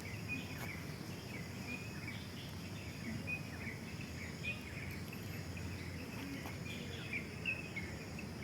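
Outdoor park ambience: a scatter of short high chirps over a steady low background rumble.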